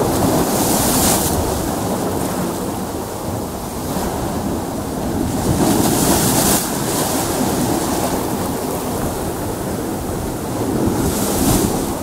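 Sea waves breaking against a rocky shore over a steady wash of choppy surf. There are three louder crashes of spray: about a second in, around six seconds in, and near the end.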